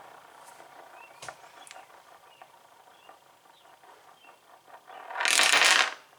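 A few light clicks and taps of a metal padlock being handled, then a loud rushing noise near the end that lasts under a second and stops sharply.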